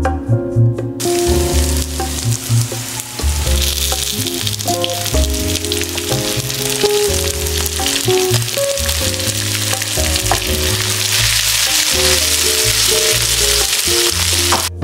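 Food sizzling as it fries in a pan, starting about a second in and cutting off just before the end. Background music with a steady bass plays throughout.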